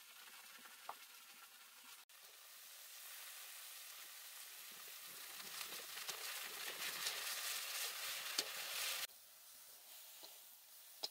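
A steady hiss with scattered crackles and pops, growing louder and then cutting off suddenly about nine seconds in.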